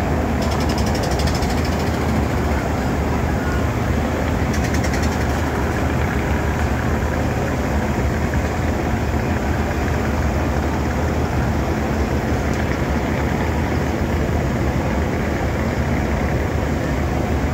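Steady, unbroken drone of a river boat's diesel engine running underway.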